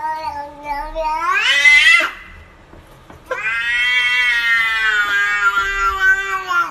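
Domestic cat giving two long, drawn-out meows: the first rises in pitch at its end, the second lasts about three seconds, holding steady and sinking slowly at the close. The drawn-out shape comes across like a whining 'whyyy'.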